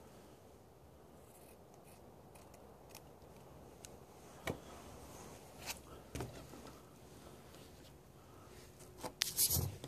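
Scissors cutting a piece of thin cloth, with a few separate sharp snips around the middle. Louder handling noise of the cloth and shoe comes near the end.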